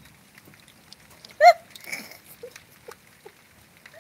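Light rain pattering in scattered small ticks. About a second and a half in, one short, loud, high-pitched animal call cuts across it.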